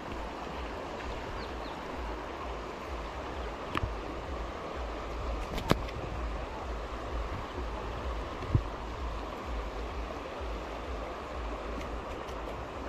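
Steady rush of river water flowing over rocks, with a few short sharp clicks, the loudest about halfway through.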